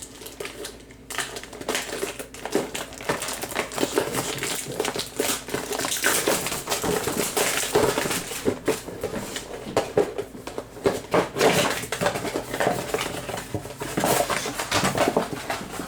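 Trading card packs being torn open and their wrappers crinkled, with cards shuffled and handled: a continuous run of irregular crackling rustles and small clicks.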